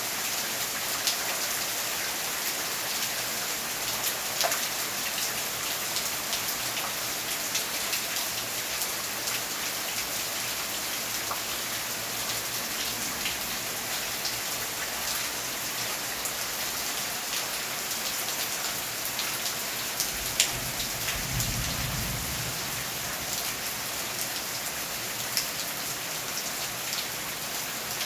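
Steady heavy rain falling on trees, garden foliage and a concrete path, with individual drops ticking now and then. A short low rumble comes about twenty seconds in.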